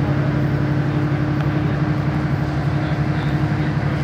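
First-generation Mercedes-Benz Citaro city bus heard from inside the passenger cabin: its diesel engine running with a steady low drone and a faint higher hum.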